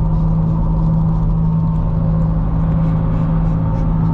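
Steady drone of a 2005 Nissan Xterra at highway speed, heard from inside the cab: its crate-rebuilt V6 engine running evenly under the road and tyre noise.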